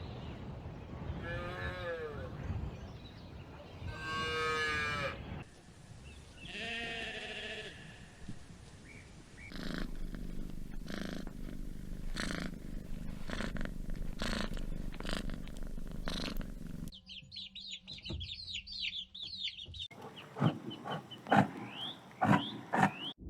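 Several different animal calls in turn, cut one after another: repeated pitched calls in the first eight seconds, then a run of sharp clicks, then high twittering chirps near the end.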